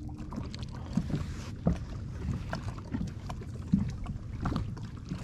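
Low rumble in a small fishing boat, with irregular light knocks and taps scattered through it.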